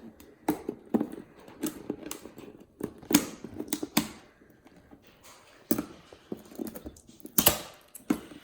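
Cardboard and plastic packaging handled by hand while a toy box is opened: irregular clicks, taps and scrapes, with a short louder rustle near the end.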